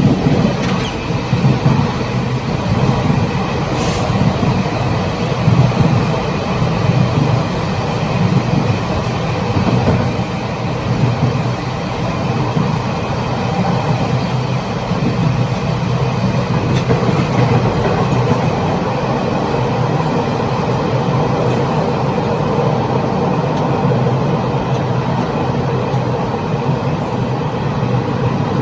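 Taiwan Railways Chu-Kuang Express passenger train running, heard at the gangway between two cars: a steady, loud rolling rumble of wheels on track that swells and eases, with a sharp click about four seconds in.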